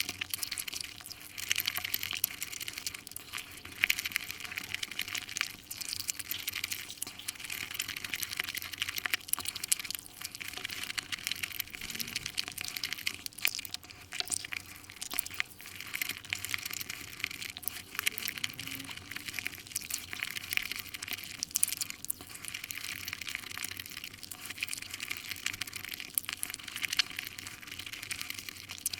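Sped-up eating sounds: wet chewing and mouth noises of someone eating Nutella crepes, fast-forwarded into a dense, continuous crackle of tiny clicks.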